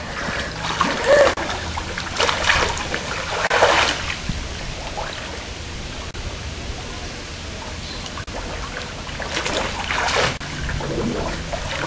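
Swimming-pool water splashing and sloshing, with several louder splashes.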